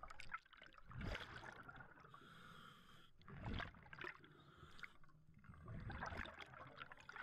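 Faint scuba breathing through a regulator underwater, with exhaled bubbles, in three swells.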